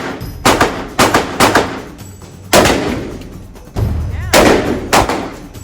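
Gunshots at a shooting range: about seven sharp shots at irregular spacing, each ringing off for a fraction of a second.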